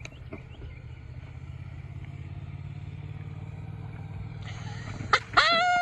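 A motor engine hums steadily at a low pitch, growing slightly louder. Near the end a loud, high-pitched exclamation cuts in.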